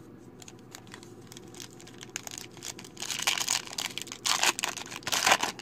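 Wrapper of a 2018 Topps Gallery baseball card pack being torn open by hand: soft rustling and clicks at first, then louder crinkling and tearing from about three seconds in.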